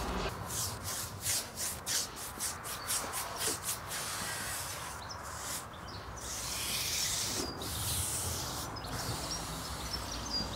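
Bristle brush stroking oil onto a solid-wood drawer front: a run of quick swishes, about three a second, over the first few seconds, then a longer, continuous rubbing hiss.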